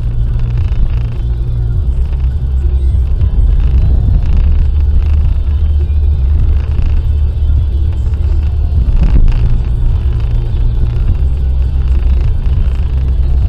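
Car driving at speed on a motorway, with a steady low road and engine rumble. A brief knock comes about nine seconds in.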